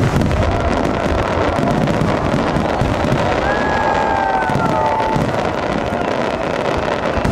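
Aerial fireworks display bursting continuously: a dense, crackling barrage of shell bursts over a low rumble of booms. A whistle falls in pitch near the middle.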